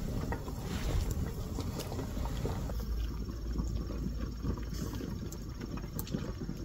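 Wood and charcoal fire burning in a clay stove under a cooking pot: a low steady rumble with a few scattered small crackles.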